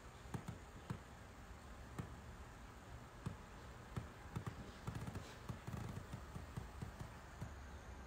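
Soft, irregular thumps of a hand drum being tapped, sparse at first and coming closer together from about halfway through.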